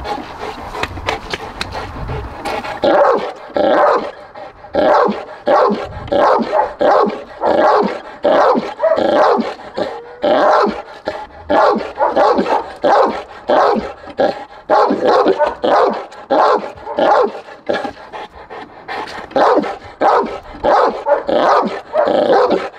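Cane Corso barking in a long run of deep, repeated barks, about two a second, from about three seconds in. The barking is aimed at the decoy trainer during protection training.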